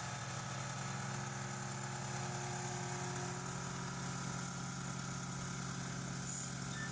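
A machine's engine idling steadily, a low even hum that does not change.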